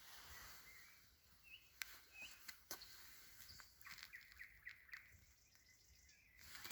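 Faint songbird calls: a couple of short chirps, then a quick run of repeated notes about four seconds in, with a few sharp clicks in between.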